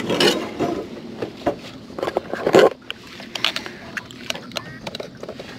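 Knocks, taps and rustles from a freshly caught black crappie being handled on a fishing boat's deck, with one louder scuffle about two and a half seconds in.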